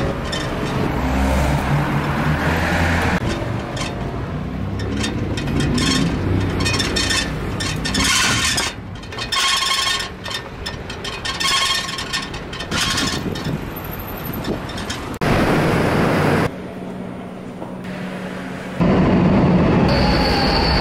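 Aluminium wire front basket rattling and clinking over the road as a two-wheeler rides through city traffic. Near the end, a metro train at an underground platform, with a steady high whine.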